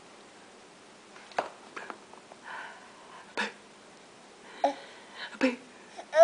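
A baby's soft breaths, mouth noises and a few brief little vocal sounds, each short and separate, with a louder burst of baby voice starting right at the end.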